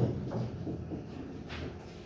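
Faint taps and scratching of a stylus writing on a touchscreen board: a sharp click at the start and a brief scratchy stroke about a second and a half in.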